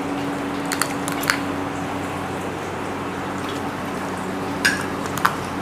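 Eating sounds: a few short wet smacks and squishes as rice and prawn curry are mixed and eaten by hand, two about a second in and two near the end, over a steady low background hum.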